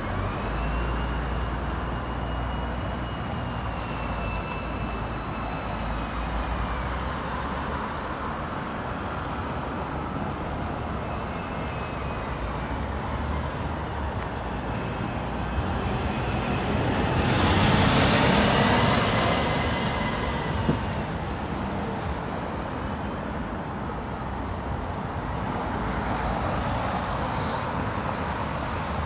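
Road traffic on a busy street, with one vehicle passing close about two-thirds of the way through, the loudest moment.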